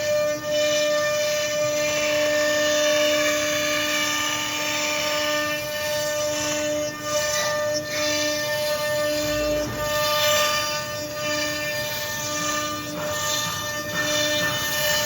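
CNC router spindle running with a steady whine over a constant hiss of cutting noise.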